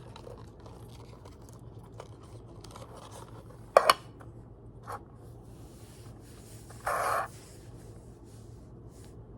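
Packaging and a hard object being handled: a loud sharp double click a few seconds in, a lighter click a second later, then a short scrape.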